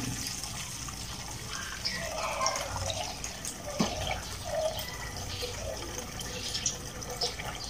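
Mussel broth pouring in a steady stream from a stainless steel pot into a wok of hot oil, with a single light knock about four seconds in.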